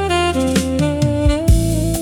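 Smooth jazz music: a saxophone plays a melody of held notes over sustained chords, and drum hits come in near the end.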